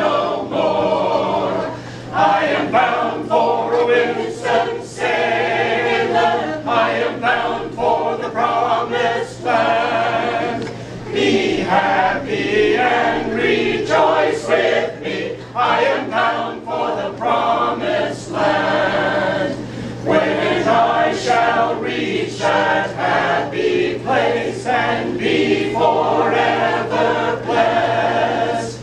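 Mixed choir of men and women singing together, phrase by phrase with short breaks between lines.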